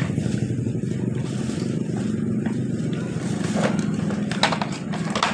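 Plastic bag rustling and plastic toy trucks clattering as they are pulled out of the bag and set down, with a few sharp knocks near the end, over a steady low rumble.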